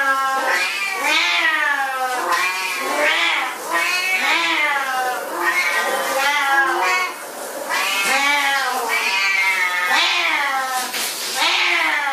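Siamese cat meowing loudly, one long call after another, about one a second, each rising and then falling in pitch.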